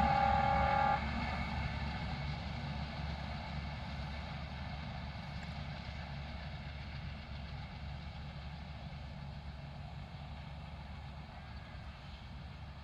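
Train horn sounding several steady tones at once, cutting off about a second in. It is followed by the steady rumble of the train running, which slowly fades as it moves away.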